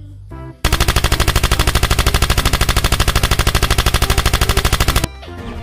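Automatic gunfire sound effect: one continuous burst of rapid shots, about twelve a second, that starts about half a second in and cuts off suddenly about five seconds in.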